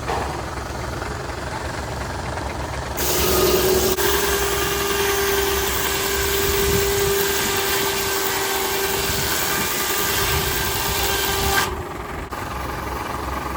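Sawmill's big circular blade cutting through a log, a loud hissing rip with a steady whine that starts about three seconds in and stops abruptly near the end, over the low steady running of the steam traction engine that powers it.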